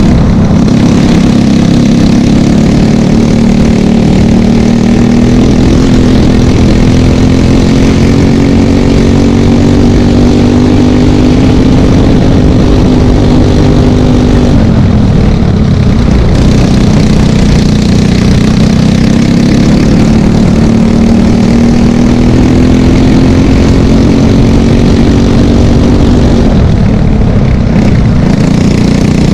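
Briggs & Stratton LO206 single-cylinder four-stroke kart engine racing at full throttle, its pitch climbing steadily down a straight. It falls off sharply for a corner about halfway through, then climbs again and falls off once more near the end.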